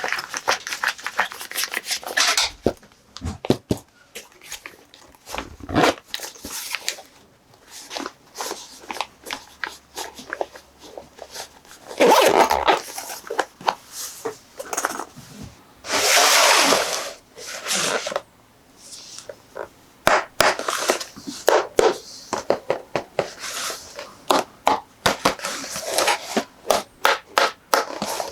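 Unboxing sounds of a plastic toy playset: packaging rustling and crinkling, with many small clicks and taps of plastic parts. The longest, loudest crinkle comes about 16 seconds in.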